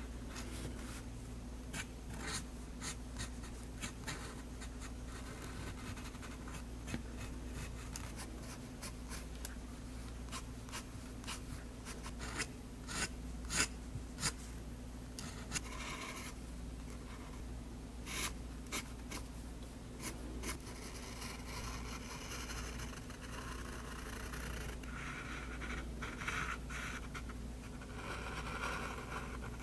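Extra-fine nib of a Faber-Castell Hexo fountain pen scratching across drawing paper in many short, quick hatching strokes, with a few longer drawn strokes near the end.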